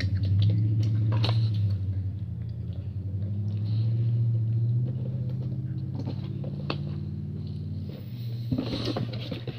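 Low steady rumble of a hand handling the phone close to its microphone, with a fine flutter and a few light clicks; it stops suddenly about eight seconds in.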